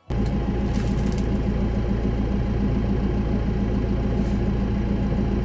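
Deutz-Fahr 6135 tractor's diesel engine idling steadily, heard from inside the cab.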